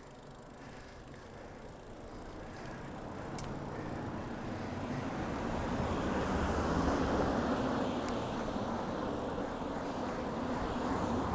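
A car passing the cyclists. Its road noise swells slowly over several seconds, peaks about seven seconds in, then eases a little. It is heard through a shirt-clipped wireless mic, with wind rumble from riding underneath.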